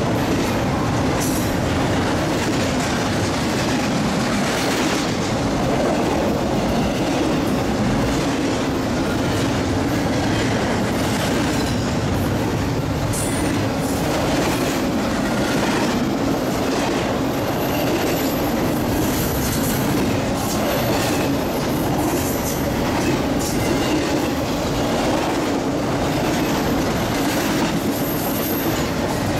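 Freight train cars rolling past at close range: a steady rumble of steel wheels on the rails with repeated clacks, and a thin high wheel squeal that comes and goes, mostly in the second half.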